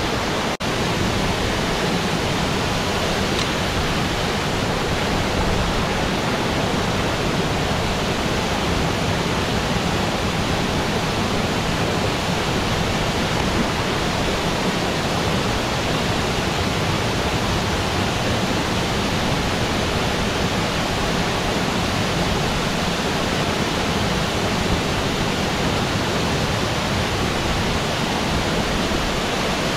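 Steady, even rush of a waterfall over 20 metres high pouring into a deep pool. There is a momentary break in the sound just after the start.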